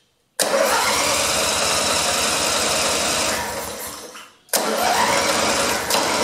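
Electric starter cranking a Briggs & Stratton 18 hp opposed-twin engine in two bursts of about three seconds each, the second starting about four and a half seconds in, without the engine catching: there is no spark, which the owner traces to a failed ignition coil.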